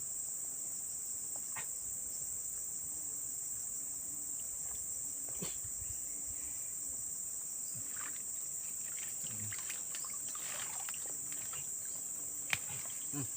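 A steady, high-pitched chorus of insects chirring, with a few faint clicks here and there.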